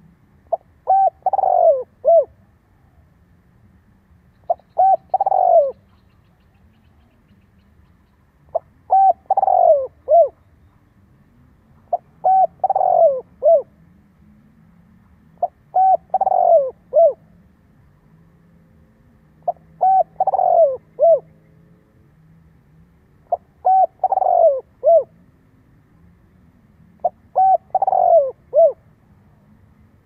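Male spotted dove singing its cooing song: a phrase of a few coos, the loudest falling in pitch, repeated about every four seconds, eight times.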